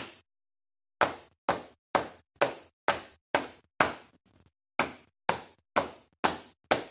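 Body percussion: hands tapping and clapping out a rhythm pattern in a steady beat of sharp strokes, about two a second. The beat breaks off for nearly a second early on and again for a moment just past halfway, where only a few faint ticks come.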